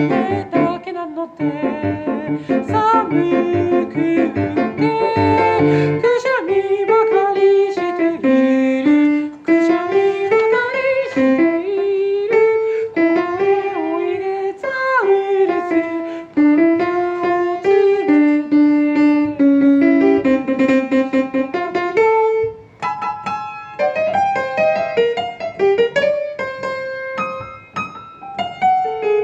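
A voice singing a song melody with piano accompaniment.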